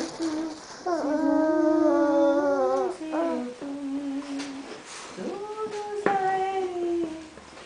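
A woman singing a slow Sinhala song unaccompanied, in phrases of long held notes that step between pitches, with short breaths between phrases.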